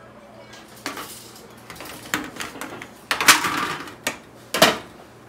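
Stainless steel steamer pot and lid clinking and knocking as they are handled on the stove, a string of sharp metal clicks with a short scraping rustle a little past the middle.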